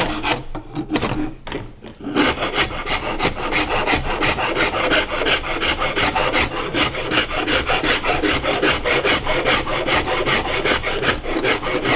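Hand wood rasp filing along a hickory bow limb in back-and-forth strokes, about four a second, taking down the ridge in the middle of the limb to flatten it. A few strokes and a brief lull in the first two seconds, then steady rasping that stops abruptly near the end.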